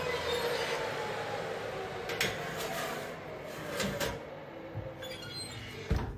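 Oven being loaded: metal scraping and knocks as the rack and baking tin slide in, then a firm thump near the end as the oven door shuts.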